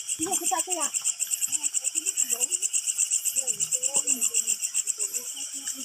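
Chorus of night insects trilling in a fast, even pulse of about ten beats a second, high-pitched and steady.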